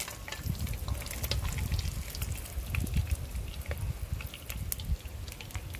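Hot oil crackling and spitting in a cooking pot as fried lobster tails are lifted out dripping, with many scattered sharp pops over a low rumble.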